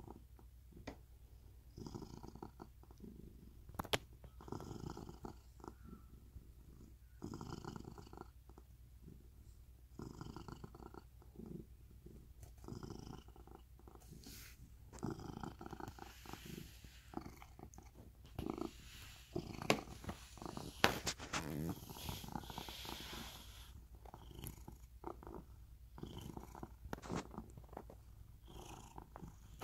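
Seal-point cat purring close to the microphone, in rounds of about a second broken by short gaps as it breathes in and out. A few sharp clicks and some rustling come in around the middle.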